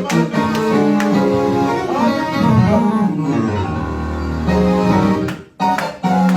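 Live church band music: held keyboard chords over a bass line, with a short break in the sound about five and a half seconds in.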